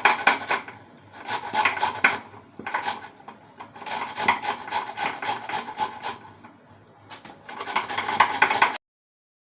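A peeled root vegetable being grated on the fine side of a hand grater: quick rasping strokes, several a second, in runs with short pauses between them. The sound cuts off abruptly near the end.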